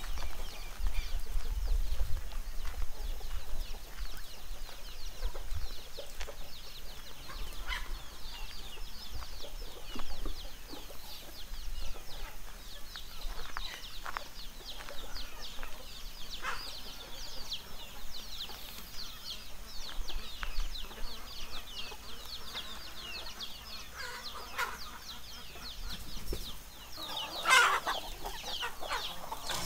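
A flock of free-range chickens clucking and calling, many short overlapping calls at once, with one louder call standing out near the end.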